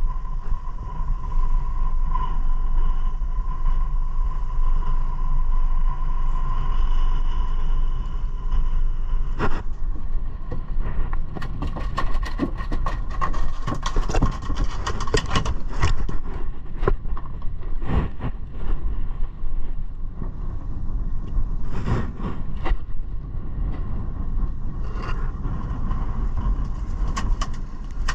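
A 150 hp outboard motor running steadily at trolling speed, a low rumble with a steady whine, under wind and water noise. About a third of the way in, a long run of knocks and clatter starts as gear is handled in the boat, thinning out toward the end.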